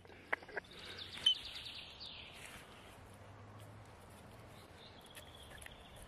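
Birdsong over faint outdoor background noise: a fast trill of chirps about a second in, then a falling whistle. Two light clicks come right at the start.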